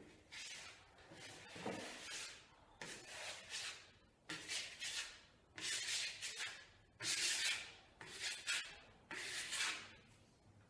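Small plastic putty knife scraping wet pre-mixed joint compound across a taped drywall patch: about eight short strokes, roughly one a second, as the first coat is floated and feathered out over the tape.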